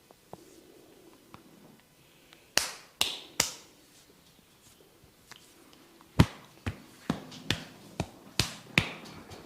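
Sharp slaps and snaps of a barber's hands during a head massage. Three come close together about two and a half seconds in, then a rhythmic run of about seven, a little over two a second, from about six seconds in.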